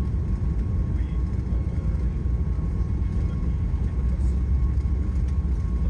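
Steady low rumble inside an airliner's cabin, with a faint steady hum above it.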